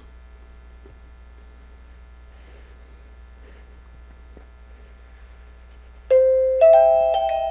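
A faint steady low hum, then about six seconds in a wireless doorbell's plug-in chime starts playing a melody of bell-like notes, each stepping to a new pitch and ringing on as it fades.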